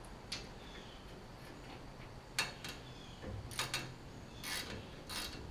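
A handful of faint, sharp metallic clicks and ticks, most of them in the second half, from a screwdriver turning screws out of a steel convertible top frame.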